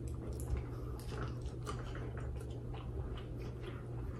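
A person chewing food close to the microphone, with irregular wet mouth clicks and smacks, over a steady low hum.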